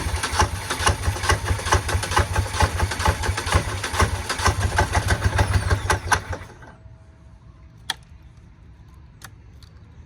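Engine cranking over in a hard start, a fast steady chugging for about six and a half seconds, then stopping suddenly. Two sharp clicks follow.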